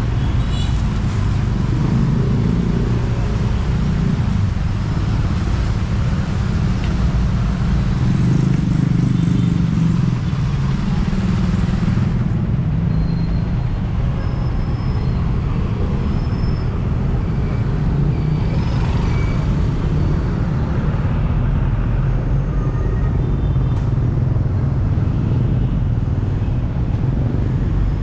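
Steady traffic noise on a busy city street: a continuous low rumble of passing vehicles, without a break.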